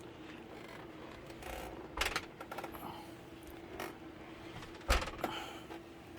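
Knocks and rattles of a large PC tower case being handled and turned around, with two louder thumps about two seconds in and about five seconds in, over a faint steady hum.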